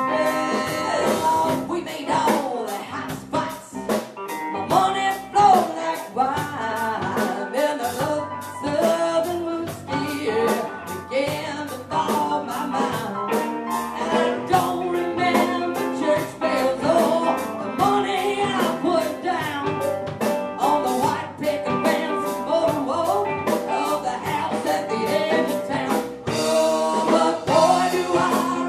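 Live band playing an upbeat blues-rock song, with a drum kit keeping a steady beat under guitar and singing.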